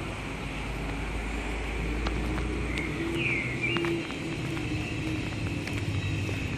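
Street ambience: a steady hum of road traffic, heaviest in the first three seconds, with a short bird chirp about three seconds in.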